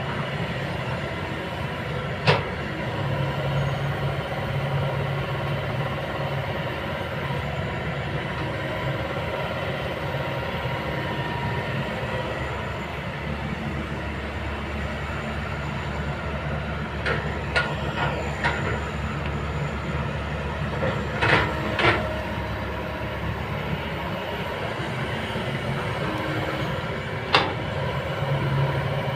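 Kobelco excavator working: its diesel engine runs steadily with a constant hydraulic whine over it. A few sharp metallic clanks come through, once about two seconds in, in a cluster around 17 to 22 seconds, and once more near the end.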